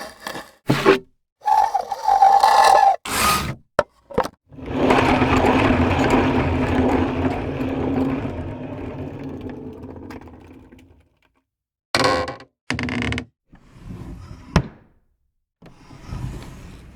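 A run of separate foley sound effects: a few short bursts, then a long noisy sound with a steady low hum that fades away over about six seconds, then two more short bursts and a sharp click.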